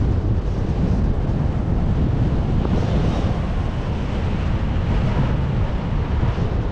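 Wind buffeting the microphone: a steady, loud rushing roar, heaviest in the low end.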